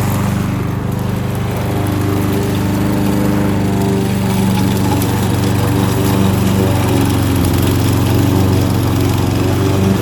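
Kohler XT-675 single-cylinder engine on a Yardworks push lawn mower, running steadily while mowing grass.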